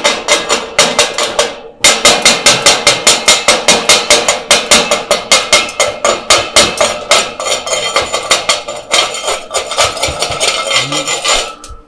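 Chipping hammer knocking slag off freshly laid stick-weld beads on a steel plate: a fast run of sharp metal-on-metal strikes, about five a second, with a short break about two seconds in and slower taps near the end.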